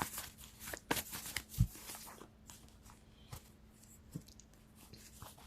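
Tarot cards being shuffled and handled: scattered soft clicks and rustles, busiest in the first two seconds, with a soft thump about one and a half seconds in.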